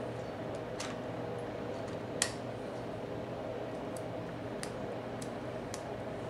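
A steady low hum of room noise picked up by a camera's built-in microphone, with scattered light clicks and taps of handling, the sharpest about two seconds in.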